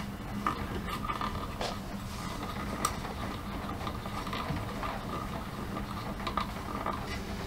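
Small clicks and light knocks of a printer's acrylic bed plate and carriage being handled, with a sharper click about three seconds in, over a low steady hum.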